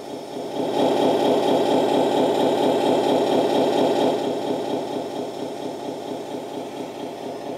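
Simulated engine idle from the JDM-168 crawler's sound module, playing through its small built-in speaker with a steady rhythmic chug. It grows louder about a second in, then slowly fades over the last few seconds as the module's volume switch is worked.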